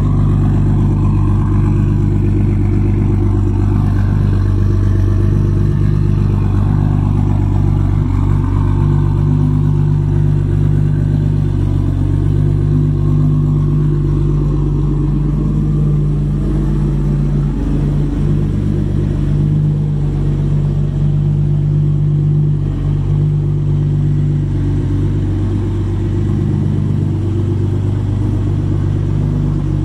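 1997 Mitsubishi 3000GT VR-4's 3.0-litre V6, converted to a single Precision 6870 turbo with BC camshafts, idling steadily.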